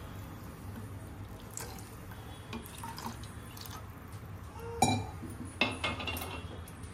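Last of the water trickling and dripping from a glass bowl into a pot of tomato sambar, with faint scattered ticks, then two sharp clinks of glass and metal kitchenware about five seconds in.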